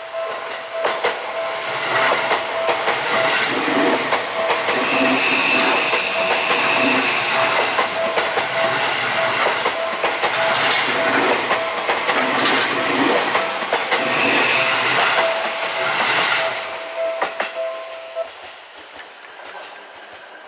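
Seibu 001 series Laview electric limited express passing close by, its wheels clattering over the rail joints, with the sound fading as it goes away near the end. A level crossing warning bell rings steadily throughout and stops near the end.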